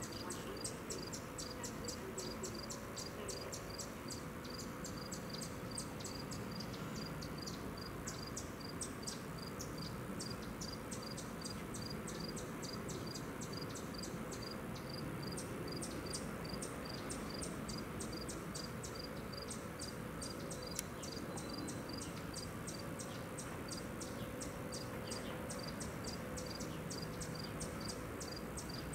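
Insects chirping steadily in a fast, even rhythm of several short chirps a second, over a faint low background rumble.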